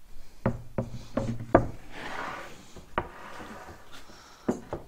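A sheet of 18 mm plywood knocking and scraping against a wooden and aluminium V-slot frame as it is laid down and slid into place. There are several sharp wooden knocks, a rough scraping rub about two seconds in, another knock at three seconds, and a couple more knocks near the end.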